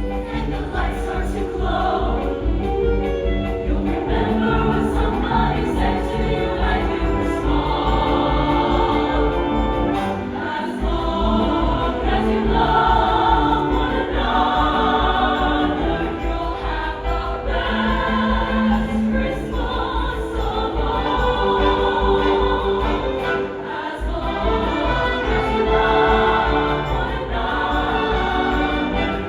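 A choir singing a Christmas song over an instrumental accompaniment with a steady bass pulse, which drops out briefly twice.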